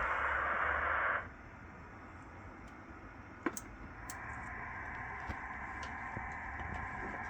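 Hiss from a radio receiver's speaker, limited to a narrow voice-like range of pitch: loud for about the first second, then cutting off suddenly. A single click comes about three and a half seconds in, and a fainter hiss returns about half a second later.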